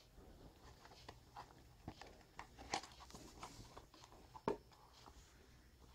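Faint handling noise of a product and its packaging: scattered light clicks and rustles, with two sharper ticks a little under three seconds in and again a couple of seconds later.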